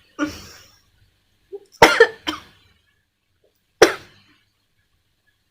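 A woman coughing in short, sharp fits: a brief cough at the start, a loud pair of coughs about two seconds in, and one more near four seconds.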